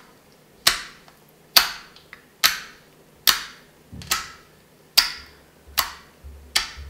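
Clear, watery hand-soap slime pressed with fingertips against a tabletop, making a sharp wet pop or slap about once a second, eight times in a steady rhythm.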